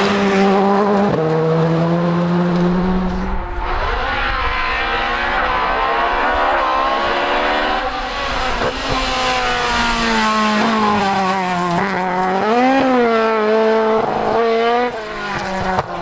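Rally cars driven flat out: a Škoda Fabia R5 passes close with a steady engine note that drops as it shifts up a gear. Then a Ford Escort Mk2 rally car approaches, its engine pitch climbing and falling again and again through the gear changes, with a quick blip of revs near the end.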